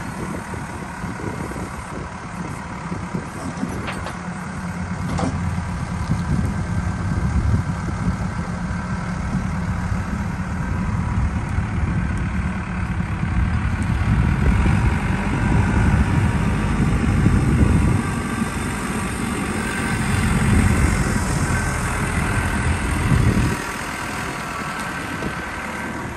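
Backhoe loader's diesel engine running as it drives and moves a large oak log in its front bucket, the engine note swelling and easing with the work and dropping back near the end.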